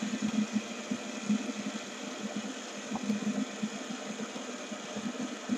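Several fidget spinners spinning flat on a table: a low, steady whirring hum from their ball bearings and bodies vibrating against the tabletop.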